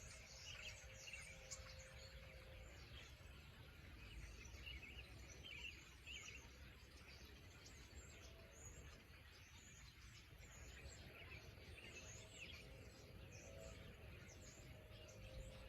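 Faint chorus of many small birds chirping and calling over the fields, scattered short chirps throughout, over a low steady rumble.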